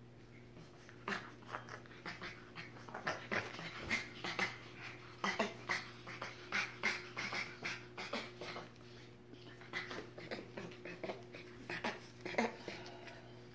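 A capuchin and a spider monkey wrestling in play, with quick short breathy panting bursts, several a second, starting about a second in.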